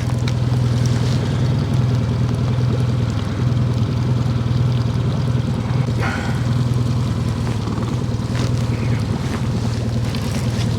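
Boat motor running steadily with an even low hum, over a continuous hiss of rain and river water.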